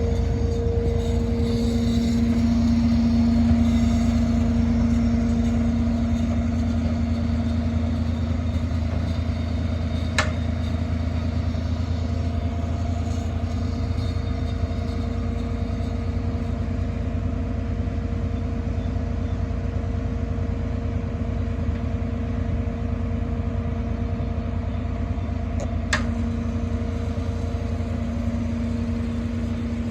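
Truck-mounted crane's engine and hydraulic pump running steadily with a constant hum while the booms are worked. Two sharp clicks break through, one about a third of the way in and another near the end.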